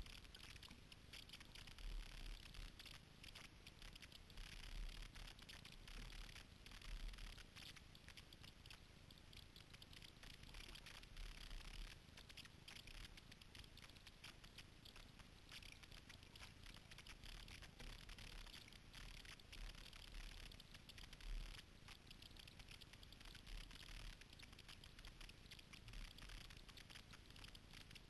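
Faint patter and splash of water from kayak paddle strokes, with irregular low bumps.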